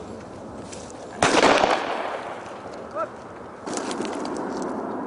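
A sudden loud bang about a second in that dies away over about half a second, then a softer, longer burst of noise near the end.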